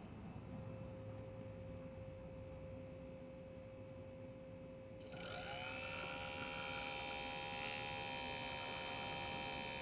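Quadcopter's motor 1, a small brushless motor, spinning up on its own about five seconds in and then running at a steady speed with a high whine; the owner believes this motor is bad.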